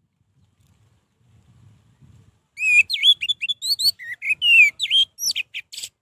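Orange-headed thrush singing a fast, varied phrase of sliding whistled notes and short trills. The song starts about two and a half seconds in, after a faint low rumble, and stops abruptly just before the end.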